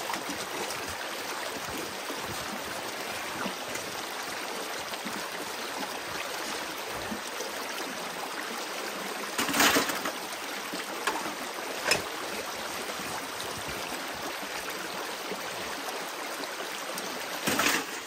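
Creek water running steadily over rocks, with a few short louder sounds about halfway through and again near the end.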